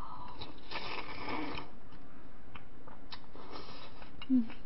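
Close-up eating sounds: two slurps, the first about a second long, of broth and food taken from a small cup with chopsticks, with small mouth and chopstick clicks between them. A brief low sound near the end is the loudest moment.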